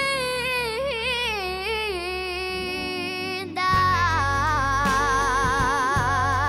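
A young girl singing a slow soul ballad solo into a handheld microphone, holding long notes with a wide vibrato. About halfway through, after a brief break between phrases, fuller backing with bass comes in under her voice.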